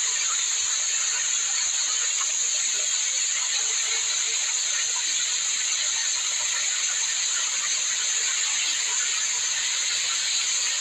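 Water of a small waterfall falling and splashing down a rock face: a steady, even hiss.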